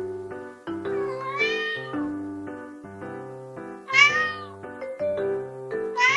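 White Munchkin cat meowing three times: long, drawn-out meows that rise and then fall in pitch, the last one starting near the end. Light keyboard music plays underneath.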